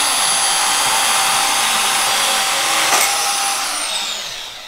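A high-speed power tool running steadily with a high whine, a short knock about three seconds in, then released and spinning down, its whine falling and fading.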